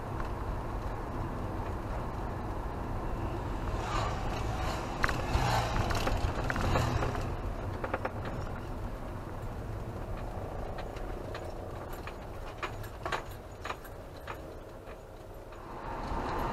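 Camper van driving, heard from inside the cab: a steady low engine and road rumble. A stretch of rattling and clicking comes about four seconds in, and scattered single clicks follow later.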